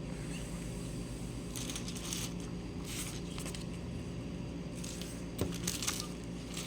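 Plastic LEGO pieces handled on a table, giving a few scattered light clicks and rattles over a steady low hum.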